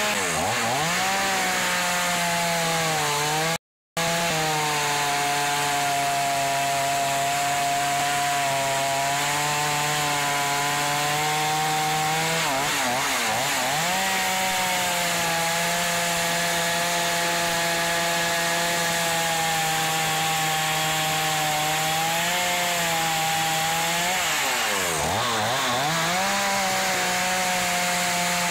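Two-stroke NAC chainsaw running at full throttle while cutting through logs. Its engine pitch drops and climbs back three times, near the start, about halfway through and near the end, as the throttle is eased between cuts. The sound cuts out for a moment about four seconds in.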